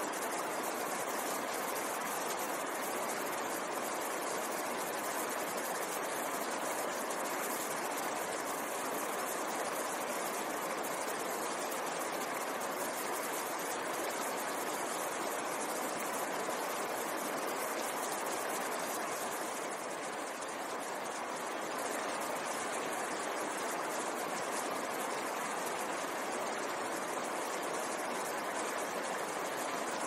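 Glacial meltwater mountain stream rushing and churning over boulders: a steady, unbroken roar of white water.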